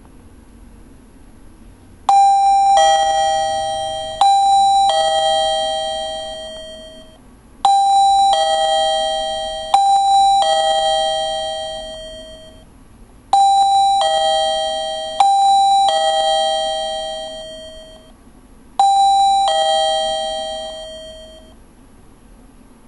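Chinese wireless doorbell chiming a two-note ding-dong, a higher note then a lower one, seven times: twice in quick succession, three times over, then once more, each chime ringing out over a couple of seconds. The doorbell is being set off by its own remote's radio signal, captured and replayed from a HackRF.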